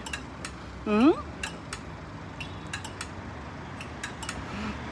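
Street background with a steady low traffic rumble and scattered light clicks and clinks, and one short rising-then-falling voice sound about a second in.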